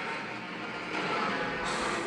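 MonsterVerse Godzilla sound effect: a long, rough, gritty creature vocalisation, held steady at a loud level.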